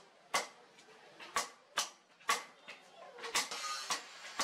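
Hand hammer striking a red-hot steel bar on an anvil: about seven sharp blows, spaced irregularly about half a second to a second apart.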